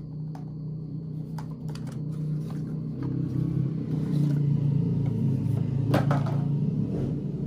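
Light paperboard clicks and rustles as a small cardboard product box is opened by hand, the loudest about six seconds in, over a steady low drone.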